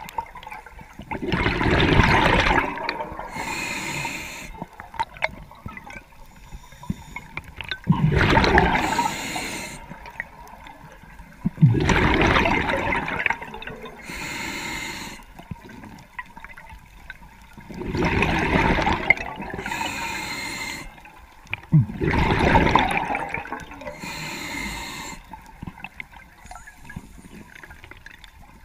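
A scuba diver breathing underwater through a regulator. There are five loud surges of exhaled bubbles, each lasting a second or two, with quieter hissing inhalations between them.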